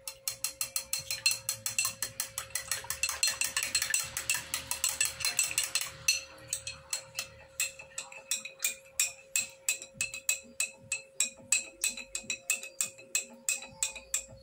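A metal spoon clinking quickly and rhythmically against a small drinking glass while stirring salad dressing, several clinks a second. A steady hum runs underneath.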